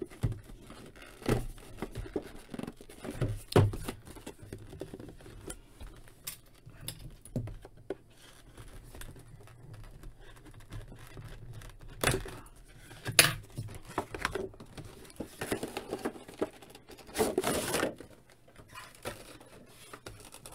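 Cardboard action-figure box being opened by hand: scattered taps, scrapes and rustles of the cardboard and plastic tray, with a couple of seconds of steadier rustling about three-quarters of the way through.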